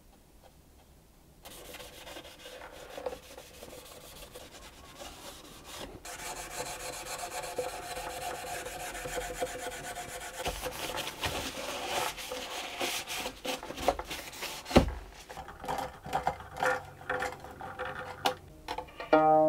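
Steady rubbing over the varnished wooden body of a violin as it is polished. About fifteen seconds in there is a single sharp click, then scattered small clicks as the strings are fitted at the pegbox, and a plucked string rings out right at the end.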